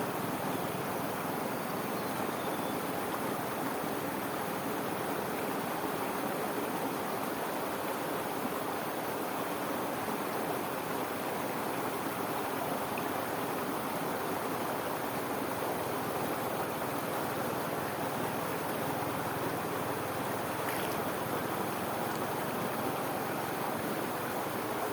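Fast-flowing water in an irrigation channel spilling over a small waterfall: a steady, unbroken rush.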